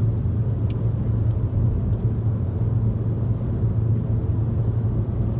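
Steady low rumble of road and engine noise inside a car cabin at motorway speed, with a couple of faint clicks in the first two seconds.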